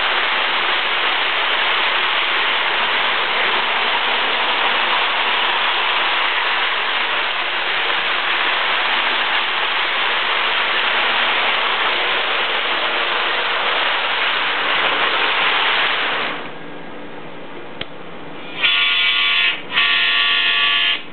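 Lionel model train running on the track with a steady rushing noise, which stops about 16 seconds in. Near the end there are two blasts of the locomotive's sound-system horn.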